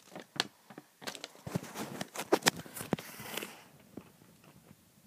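Paper and packaging being handled: an irregular run of crackles and clicks, with a short rustle about three seconds in, then it goes quiet.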